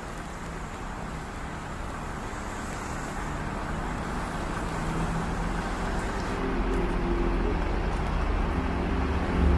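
A bus's engine running as it draws near, growing steadily louder over a constant hiss of heavy rain and wet road noise.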